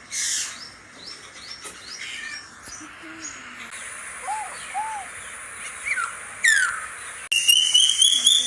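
Several birds chirping and calling in short notes and quick downward-sweeping calls. About seven seconds in the sound cuts abruptly to a loud, steady whistled note that rises slightly in pitch.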